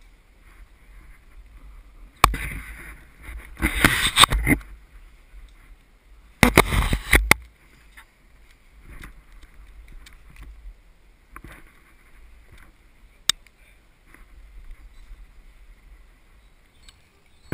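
Handling noise on a climber's body-worn GoPro Hero2: rustling and scraping as the camera housing brushes rock and clothing, with a low wind rumble on the microphone. There are two loud bursts of scraping, one about two seconds in lasting a couple of seconds and a shorter one at about six and a half seconds, and a single sharp click later on.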